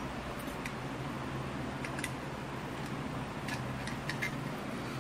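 Soldering iron tip scraping and ticking against a circuit board's solder joints while desoldering preset resistors, a few short, thin clicks loosely spaced over a steady low hum.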